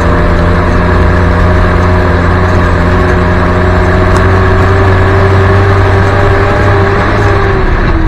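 1971 Land Rover Series 2a Marshall ambulance driving along, its engine and drivetrain running steadily, heard loud from inside the cab. A whine rises slightly and then drops near the end.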